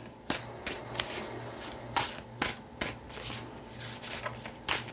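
A Moonchild Tarot deck being shuffled by hand, the cards sliding and slapping together irregularly, with several sharp snaps.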